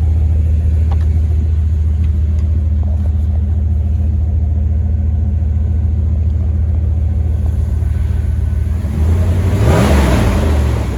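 Dodge Ram 1500 pickup engine idling steadily, with a brief louder surge near the end.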